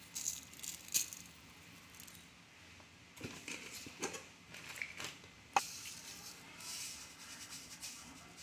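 Seasoning granules sprinkled from a spoon onto raw quail in a stainless steel bowl: faint scattered pattering and light clicks, with a sharper tap about five and a half seconds in.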